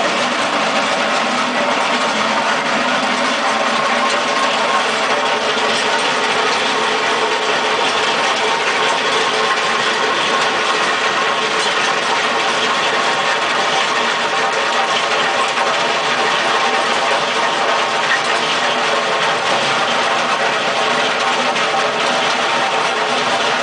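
Simex T600 cutting wheel on a Mustang 2076 Turbo skid steer grinding a trench through concrete, over the steady run of the loader's turbo diesel engine under load. It is one continuous, even grinding and engine noise with no breaks.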